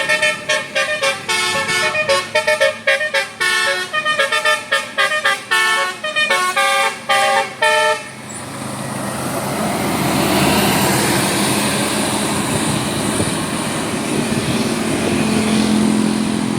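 Bus telolet horn playing a rapid tune of short, stepped musical notes for about eight seconds, then cutting off. The bus's engine and rushing road noise then swell as it drives past.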